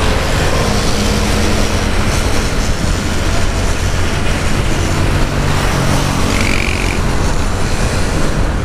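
Riding a motorcycle in city traffic: steady wind rush on the microphone over the bike's engine and tyre noise. A brief higher tone sounds about six and a half seconds in.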